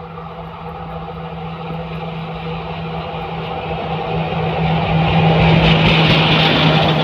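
Goods train locomotive approaching, its steady low hum growing louder, with a rushing hiss building near the end as it draws close.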